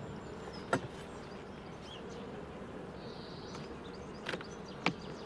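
Honeybees of an open hive buzzing steadily, a low drone with no break, with a few short sharp clicks on top, about a second in and twice near the end.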